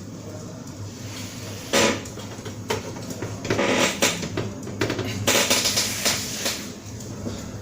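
HP ProLiant ML350 Gen9 server running with a steady low hum from its fans as it starts up. Over it come several bursts of metallic clatter and handling noise: a sharp one about two seconds in and longer ones in the middle and later part.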